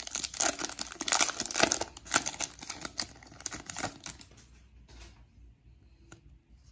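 Foil booster-pack wrapper crinkling and tearing as it is ripped open by hand, a dense crackle for about four seconds. It then drops to a few faint soft ticks as the cards are handled.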